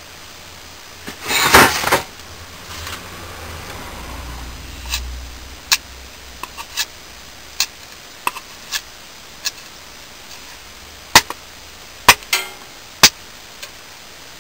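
Bill hook blade striking a wooden board in repeated chops: about a dozen sharp, separate knocks at irregular intervals, the loudest three near the end. A loud brief scraping rush comes about a second in, before the chops.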